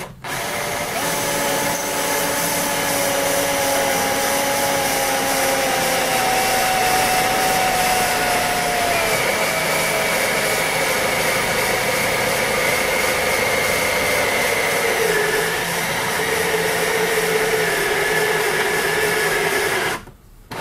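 Hand-held electric drill running under load as its twist bit cuts a tapping-size hole for an 8 mm bolt into an aluminium plate. The steady motor whine sags slowly in pitch as the bit bites, and it stops sharply near the end.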